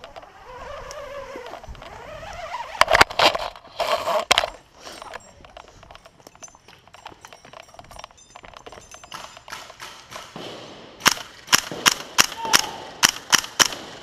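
Rustling and scraping during a rappel down a building wall, loud knocks about three to four seconds in, then a quick series of sharp cracks, about three a second, near the end.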